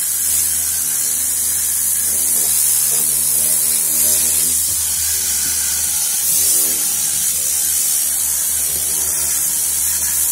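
Tornador compressed-air cleaning gun spraying against a car's fabric headliner at about 10 bar to lift the dirt out: a loud, steady hiss with a low hum underneath.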